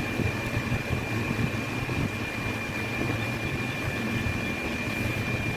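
A steady low hum and hiss with a constant high-pitched whine over it, like a running machine or fan.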